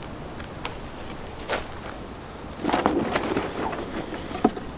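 Handling noise from a cardboard box and packaging being rummaged through. There is a sharp tap about a second and a half in, a longer rustle around three seconds, and a few small clicks near the end.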